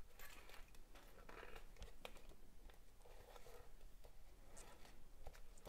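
Faint rustling and light scratching of waxed polyester threads being pulled and knotted by hand on a macramé board, with a few soft ticks.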